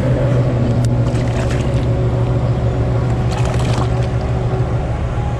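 A hooked largemouth-type bass splashing and thrashing at the surface beside a kayak, in a few short splashes, over a steady low hum.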